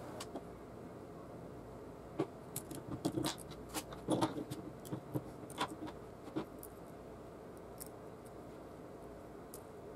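Small clicks and taps of plastic and metal parts as a CD-ROM drive's laser pickup assembly is handled and taken apart on a table. They come in a scattered cluster from about two to six and a half seconds in.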